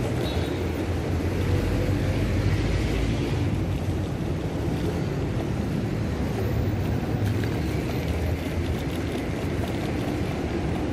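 Steady wind rush over the microphone of a moving bicycle, mixed with the constant noise of motor traffic on a city road.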